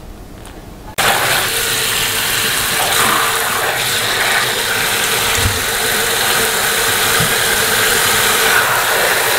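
Tap water running hard into a metal basin of salted winter cabbage, with gloved hands swishing the leaves as they are rinsed. The running water starts suddenly about a second in and holds steady.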